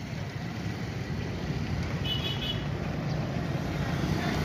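Steady rumble of road traffic, with a brief high beep about two seconds in.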